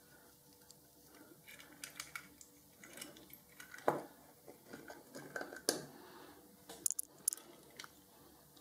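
A twist drill bit in a wooden handle, turned by hand against a diecast car's rivet, making irregular small scraping and crunching clicks as it cuts the metal. Louder knocks come about four and six seconds in, with a quick run of sharp clicks near the end.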